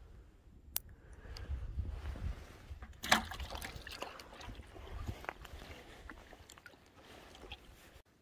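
Water sloshing with small knocks and clicks, and one loud sharp knock about three seconds in followed by a crackling rustle.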